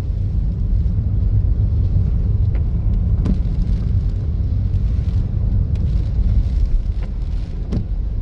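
Vehicle driving on wet roads in the rain: a steady low rumble of road and engine noise, with a few short sharp ticks about three seconds in and twice near the end.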